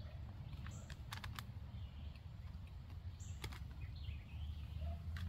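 Woodland ambience: small birds chirping now and then over a steady low rumble, with a few faint clicks.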